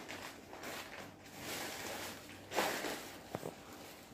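Paper pages of a children's workbook being handled and turned, a soft rustling with a louder rustle about two and a half seconds in and a small click shortly after.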